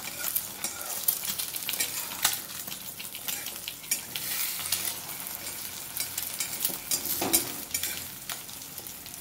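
Beaten eggs sizzling in hot oil in a metal kadai, with a spatula scraping and tapping against the pan again and again as the eggs are scrambled.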